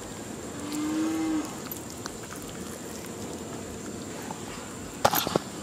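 A cow moos once, a short steady call about a second long. A few sharp clicks come near the end.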